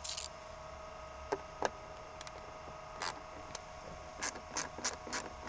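Small hand ratchet clicking in quick short strokes as it loosens the 7 mm bolt holding the sun visor, starting about four seconds in after a few scattered taps. A faint steady hum runs underneath.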